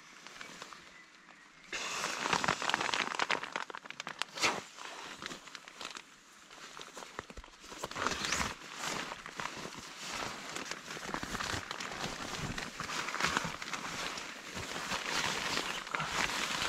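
Rustling and crinkling of a nylon inflatable sleeping pad and a plastic rain poncho as the pad is handled during inflation. It starts about two seconds in and goes on unevenly, louder and softer by turns.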